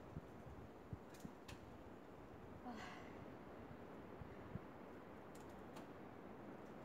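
Near silence: a faint outdoor background hiss with a few soft clicks, and a brief faint breathy sound about three seconds in.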